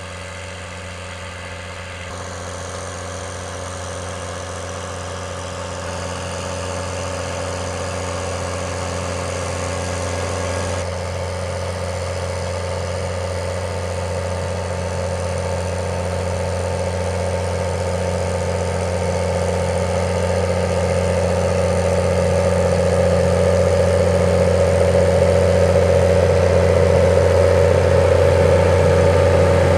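Case IH Puma 180 CVX tractor's six-cylinder diesel engine running steadily under load while pulling a seed drill and front packer roller, growing louder as it comes closer.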